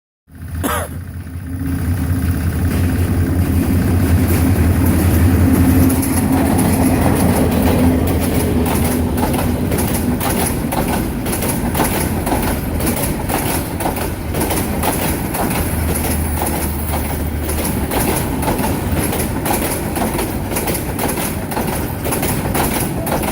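Bangladesh Railway diesel train passing: the locomotive's engine hum is loudest in the first several seconds, then the carriages' wheels clatter over the rail joints in a long run of even clicks.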